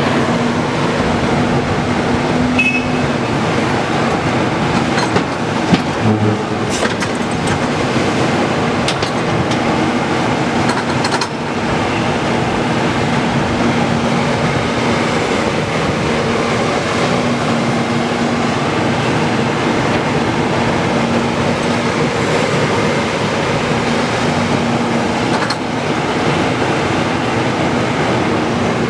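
Excavator running with a steady, loud drone of engine and machinery noise and a constant hum, broken by a few sharp knocks.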